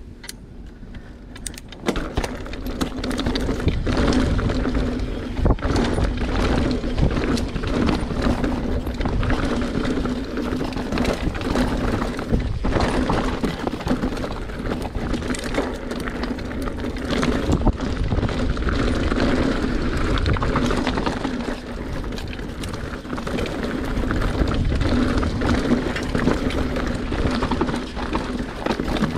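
YT Capra enduro mountain bike ridden fast down a rocky downhill trail: tyres rolling over rock and dirt, with constant rattling and many sharp knocks as the bike hits rocks, and wind rumbling on the camera's microphone. The noise comes up about two seconds in.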